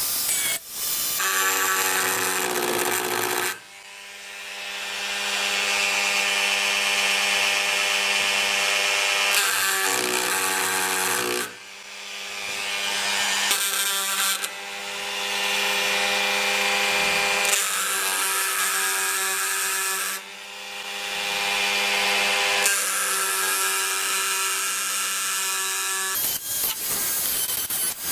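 Handheld rotary tool running with a steady motor tone, its bit cutting into wood. Three times it drops away and spins back up over a couple of seconds.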